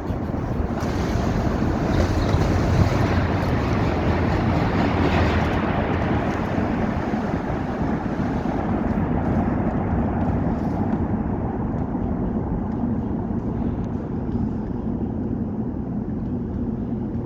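SRT high-speed train running through a station at speed: a loud rush of wind from the train's air pressure over a rumble of wheels on rails. The hiss is strongest in the first few seconds, then eases to a steady low rumble.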